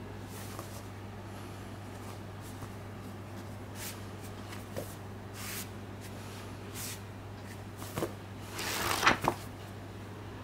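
Gloved hands handling a paperback manga volume, giving soft scattered rustles and taps, then a louder rustle with a couple of sharp knocks about nine seconds in, over a steady low hum.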